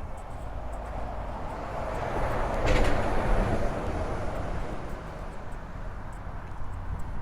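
A vehicle passing along the street. Its noise swells to a peak about three seconds in, then fades away.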